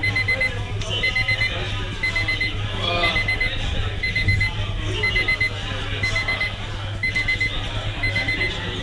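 Digital countdown timer beeping, a quick group of about four short high beeps repeated once a second: the 10-minute time limit of the eating challenge has run out.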